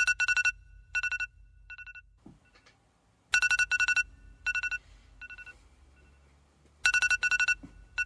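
Smartphone alarm going off: groups of high electronic beeps, each group two loud beeps trailing off into fainter repeats, recurring about every three and a half seconds.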